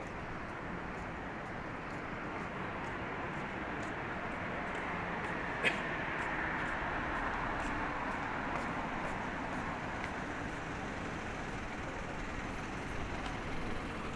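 Steady street traffic noise, swelling as a vehicle passes about halfway through, with one sharp click just before it.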